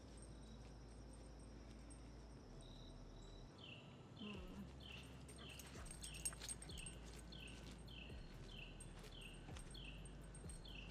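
A bird calling faintly, a short falling whistle repeated evenly about twice a second, starting a few seconds in.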